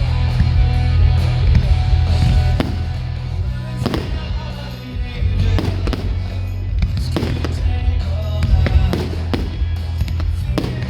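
Fireworks shells bursting in a series of sharp bangs, roughly one every second or so at irregular spacing. Music with a heavy, steady bass plays throughout.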